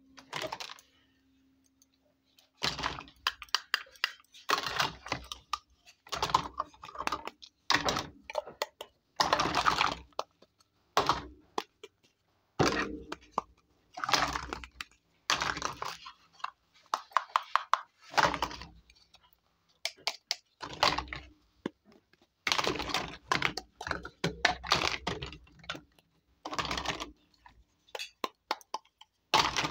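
Miniature plastic toy kitchenware clicking and clattering as it is picked up and handled over a heap of other plastic toys, in clusters of sharp clacks a second or two long with short pauses, starting after about two and a half seconds.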